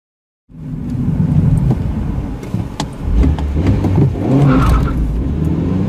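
Car engine and road noise heard inside the cabin: a steady low drone with a few sharp ticks. Near the end the engine starts to rise in pitch as it revs up.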